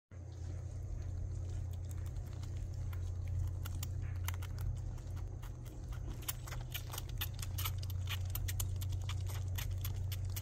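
Young squirrel suckling milk from a syringe: quick, irregular wet clicks and smacks of its mouth working the syringe tip, becoming much busier about four seconds in, over a steady low hum.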